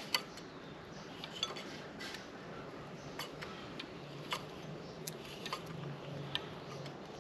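Scattered light clinks and taps of metal, about one a second, as a small metal tin is handled against a brass valve and a PVC pipe end.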